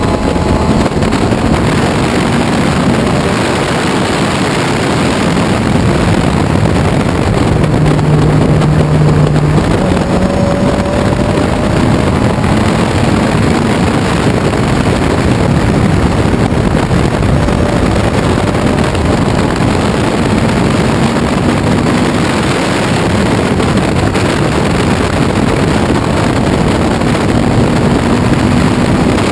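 1968 Ginetta G16 sports racer's engine running at racing speed, heard from the open cockpit under a steady rush of wind on the microphone, its pitch rising and falling as the car accelerates and slows.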